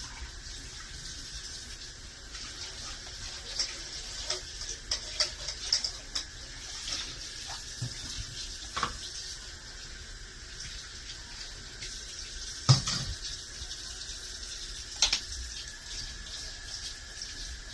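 Kitchen tap running into a sink while hands and dishes are washed, with scattered clinks and knocks; one sharp knock stands out about two-thirds of the way through.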